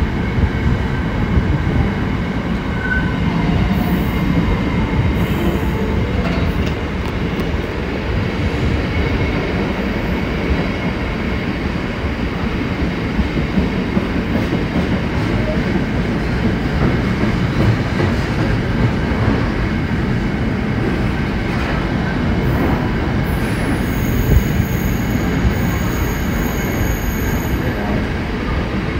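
Freight train passing at close range: a continuous heavy rumble of wagons over the rails, with a faint high, steady wheel squeal.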